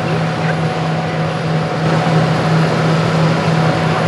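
Hitachi Zaxis 350 LCN excavator's diesel engine running steadily, a constant low hum with fainter steady higher tones over it.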